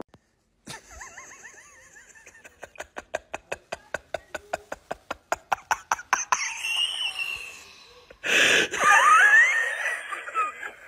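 A run of quick sharp clicks that speed up over several seconds, then, about eight seconds in, a sudden loud outburst of a person's voice.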